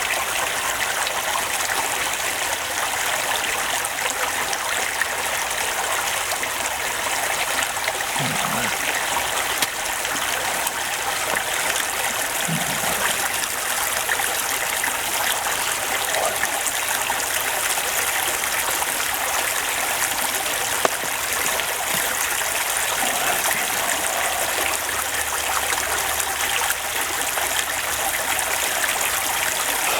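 Steady, even rushing hiss with no rhythm.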